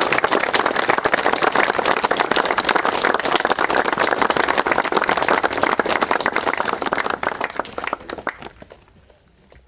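Crowd applauding: many hands clapping steadily, then dying away near the end.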